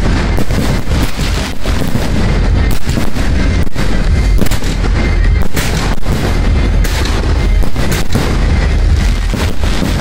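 Dense, continuous barrage of aerial firework shells bursting, many booms overlapping one another, with music playing along.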